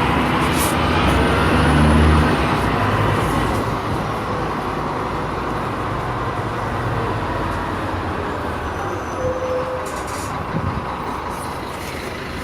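Scania K310 city bus's diesel engine pulling hard for the first couple of seconds, its low note loudest about two seconds in, then easing off as the bus runs on with steady road noise.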